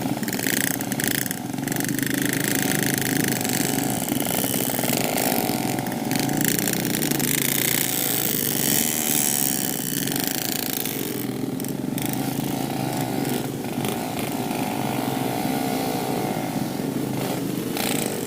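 Yamaha RX-King 135's two-stroke single-cylinder engine with its carburettor set rich ("stel basah"), running at low speed in slow traffic, its revs rising and falling.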